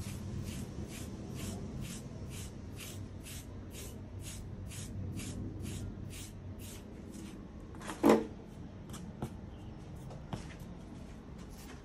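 A carding knife is drawn in quick repeated strokes through a cocker spaniel's coat, pulling out dead undercoat: a light rasp about two to three strokes a second. About eight seconds in comes a short, louder pitched sound, after which the strokes come more sparsely.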